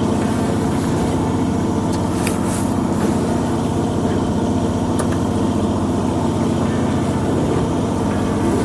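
Fishing boat's engine running steadily, a loud, even low hum with a couple of faint ticks.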